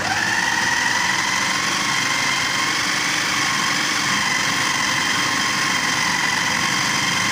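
Electric food chopper's motor switched on and running at full speed, chopping minced meat with spices. It makes a loud, steady high whine whose pitch climbs briefly as it spins up at the start.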